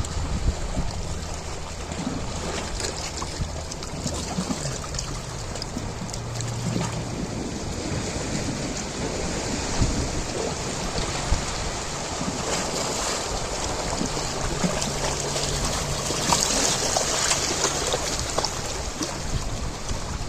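Ocean waves washing and breaking in a continuous rush of water, with a bigger wave surging in about three quarters of the way through. A faint low hum comes and goes underneath.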